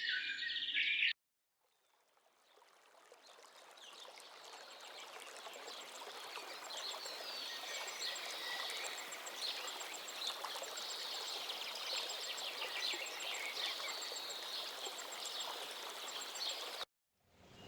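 Nature ambience: birds chirp for about a second, then the sound drops out briefly. A steady stream-like rushing fades back in with birds calling and a high chirp repeating at regular intervals over it, and cuts off abruptly just before the end.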